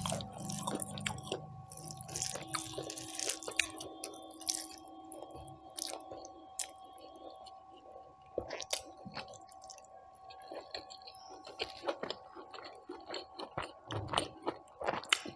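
Close-miked chewing of a mouthful of rice and mutton curry: irregular wet mouth smacks and soft clicks.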